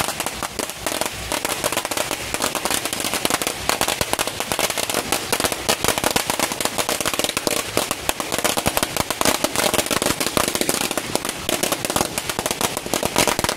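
Strings of firecrackers going off in a dense, unbroken crackle of rapid pops.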